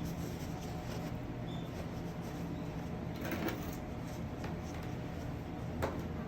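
A steady low machine hum, with two short knocks about three and a half and six seconds in.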